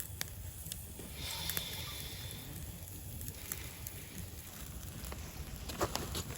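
Wood campfire burning with scattered crackling pops over a steady low rumble. A brief hiss comes about a second in, and a cluster of sharper clicks near the end.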